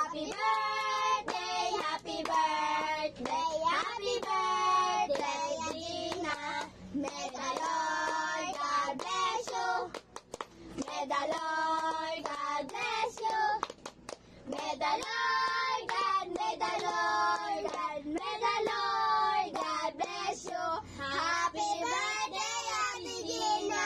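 A group of young children singing together in phrases, with hand clapping.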